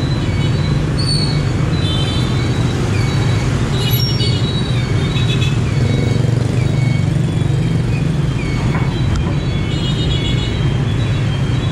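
Steady city street traffic noise, a constant low engine hum, with short high-pitched tones scattered throughout.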